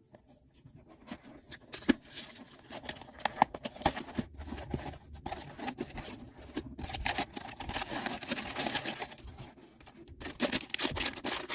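Pop Mart blind box being opened by hand: cardboard and packaging tearing and rustling, with many small irregular clicks and crinkles as the bag inside is pulled out.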